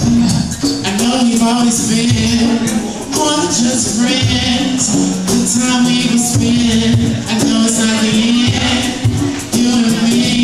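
Live acoustic set: a man singing into a microphone while strumming an acoustic guitar.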